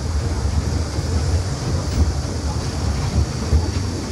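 Small tourist ride train running along its track: a steady low rumble.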